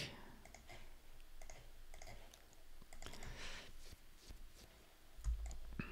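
Faint, scattered clicks of a computer mouse, a few spread out over several seconds.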